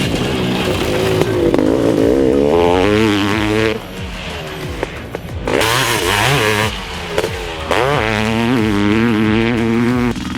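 1995 Honda CR500's single-cylinder two-stroke engine revving up and down under a rider, easing off twice and with a loud hissing surge near the middle, over background music.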